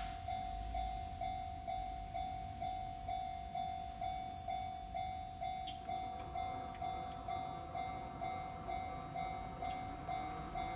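Japanese railway level crossing warning bell ringing in a steady repeating clang, about three strokes a second. From about six seconds in, the rising rumble and rail noise of an approaching train grows beneath it.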